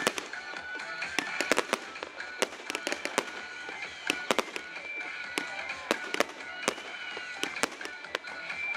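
Aerial fireworks shells bursting in quick, irregular succession, about two sharp bangs a second, over a crackling haze.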